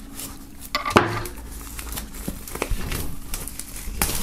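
Folding knife slitting the plastic shrink-wrap on a cardboard box, and hands pulling at the film, which crinkles and crackles, with one sharp knock about a second in.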